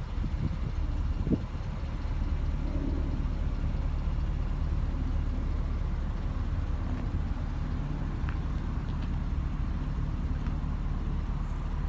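A car engine idling: a steady low rumble, with one short knock about a second in.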